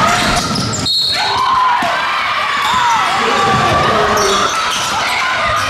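Basketball game sound in a gym: a ball bouncing on the hardwood court, with players' and spectators' voices, and a short break about a second in where the clips are cut together.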